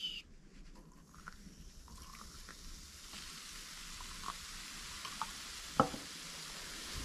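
Coloured foam fizzing up out of clear tumblers as liquid is poured onto a white powder in each one. It makes a steady hiss that grows as more tumblers foam, with a few light ticks from the pouring cup and a sharp knock about six seconds in.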